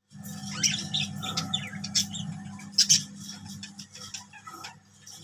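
Several birds chirping and calling over one another in quick short notes, with the sharpest calls about three seconds in. A low steady hum lies underneath and fades out a little past halfway.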